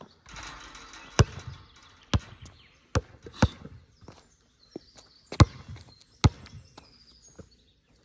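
A basketball bouncing: six sharp thuds at uneven intervals. A short hiss of noise comes near the start.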